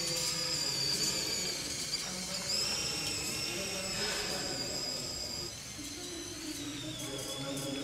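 High-pitched whine of a small electric motor and gearbox driving a 1/32-scale RC model vehicle. The pitch falls a step about five and a half seconds in.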